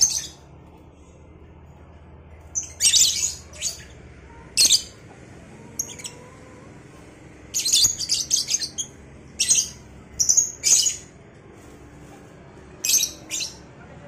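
Two caged lovebirds calling back and forth with short, shrill, high chirps. The chirps come singly or in quick clusters of two to five, with gaps of one to two seconds between them.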